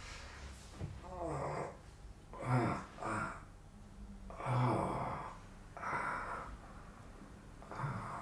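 A man groaning and sighing as he stirs in bed, five or six separate groans with short pauses between, some sliding in pitch.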